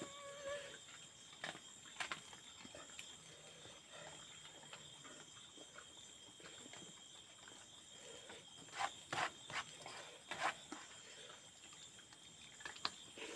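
Faint eating sounds of a man eating rice by hand: chewing and wet lip smacks, with a short run of sharper smacks about nine to ten and a half seconds in, over a steady high-pitched hum.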